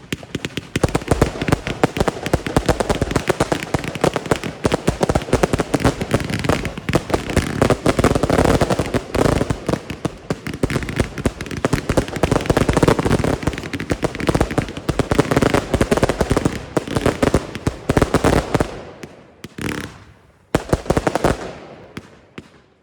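Fireworks going off in a dense, continuous crackle of rapid pops and bangs. About 19 seconds in, it thins to scattered pops.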